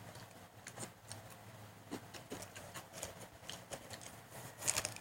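Faint crunching of crispy shoestring potato sticks being chewed, heard as small scattered crackles with a slightly louder cluster near the end.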